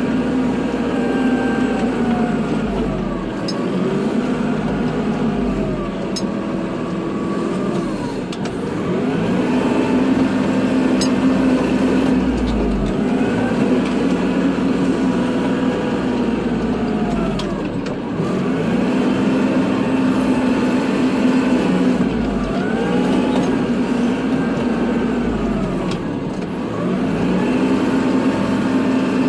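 Kubota tractor's diesel engine working while plowing snow, its pitch dipping and rising again about every four to five seconds as the load and throttle change, with a few faint clicks.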